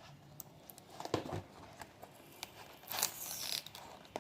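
Tape being picked at and peeled off a box: scattered handling clicks and knocks, with a longer ripping stretch about three seconds in, the tape proving hard to get off.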